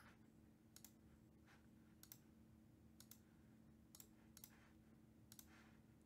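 Near silence broken by faint, scattered clicks of a computer keyboard and mouse, some coming in quick pairs.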